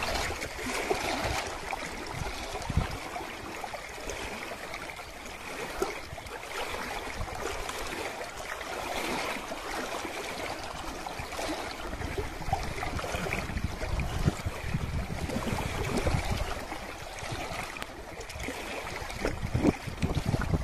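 Lake water lapping and gurgling against a rocky shore, a steady babble.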